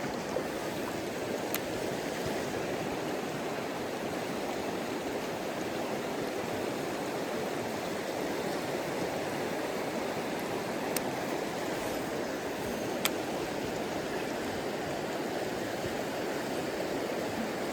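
Mountain stream rushing steadily, running a little high after rain, with a few faint sharp ticks.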